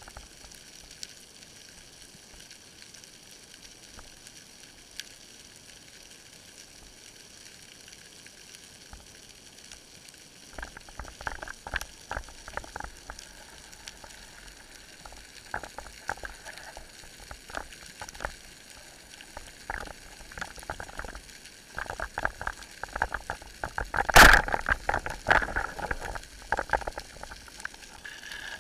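Underwater crackling and clicking, faint at first and much denser from about ten seconds in. One loud sharp crack about three-quarters of the way through is a speargun firing.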